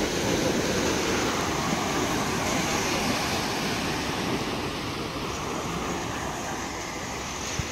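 Small sea waves breaking and washing up a flat sandy shore: a steady rush of surf that is fuller over the first few seconds, then eases.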